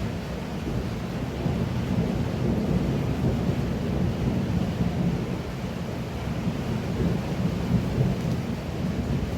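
Heavy pouring rain, a steady dense rush with most of its weight in the low range and small swells in loudness.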